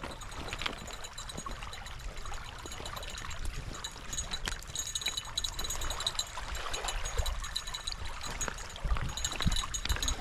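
Water running or lapping, a steady watery rush with scattered small clicks and ticks.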